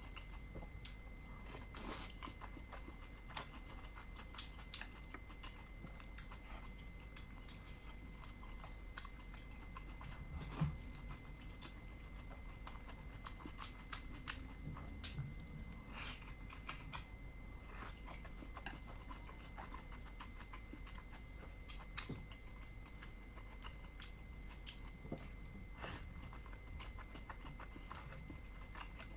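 Close-up chewing of dumplings: wet mouth smacks and clicks coming irregularly, a few of them sharper than the rest.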